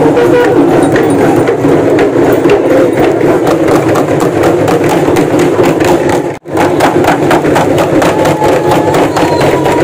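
Dense, fast drumming on festival drums, many strokes a second. It drops out for an instant a little past halfway.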